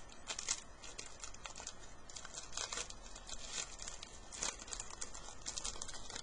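Hockey card pack wrapper crinkling and tearing as it is opened, in quick irregular rustles.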